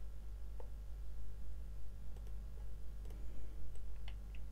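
A few faint, irregularly spaced computer mouse clicks over a steady low hum.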